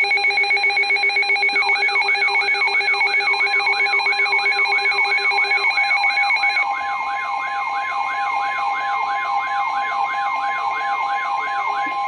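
Emergency weather-alert tones from several alert devices sounding at once: steady electronic alarm tones with a siren-like tone sweeping up and down about three times a second over them. Some of the steady tones drop out about two-thirds of the way through, and the sound gets a little quieter.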